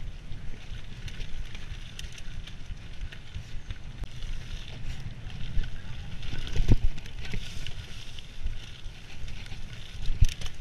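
Giant Anthem SX mountain bike running fast down a dirt singletrack: tyres on dirt and a constant rattle of chain and frame with many small clicks, under a low wind rumble on the microphone. Two hard knocks as the bike hits bumps, about six and a half seconds in and near the end.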